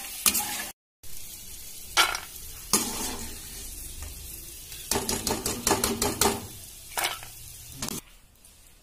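Peanuts frying in hot oil in a kadhai, with a steady sizzle, and a metal slotted spoon scraping and clinking against the pan and a steel bowl as the peanuts are lifted out. There is a short break of silence just under a second in, and the sound drops off near the end.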